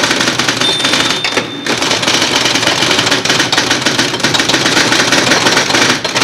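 Manual typewriter typing in a fast, continuous run of key clacks, with a steady high ring lasting about a second, starting about half a second in.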